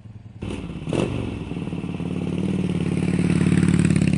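Motorcycle engine starting about half a second in, catching with a short burst, then running steadily and growing louder toward the end.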